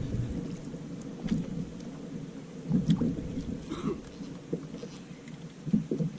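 Water sloshing against a fishing kayak's hull, with two louder surges, about three seconds in and near the end, and a few light knocks.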